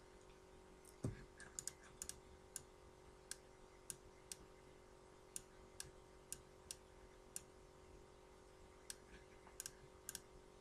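Faint, scattered clicks of a computer mouse, a few in quick pairs like double-clicks, over a low steady hum.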